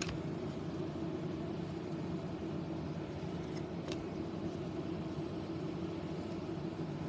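Steady low background hum of room noise, with a couple of faint clicks a little over halfway through.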